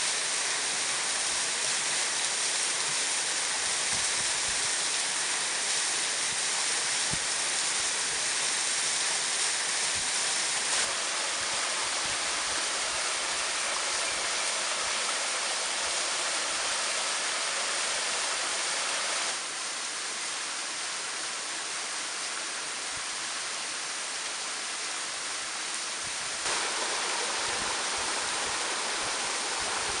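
Rushing water of a small waterfall and stream splashing over rocks, a steady hiss. It turns quieter and duller about two-thirds of the way through, then jumps back louder near the end.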